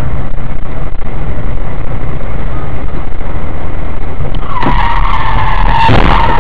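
Loud steady road and wind rumble in a moving car, picked up by a dashcam microphone. About four and a half seconds in, a high steady tyre screech from a skidding car begins, and about a second later a sharp crash-like noise of a collision.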